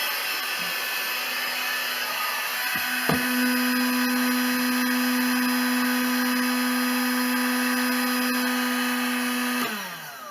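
Electric heat gun running steadily, its fan blowing hot air to shrink heat-shrink tubing over a cable, with a steady hum joining about three seconds in. Near the end it is switched off and the fan winds down in falling pitch.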